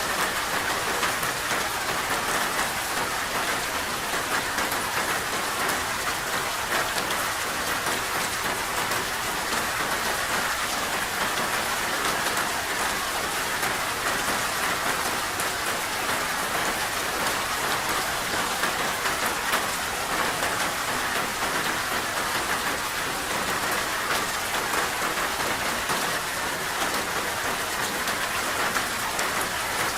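Steady heavy rain falling, a dense even hiss of drops pattering on a surface.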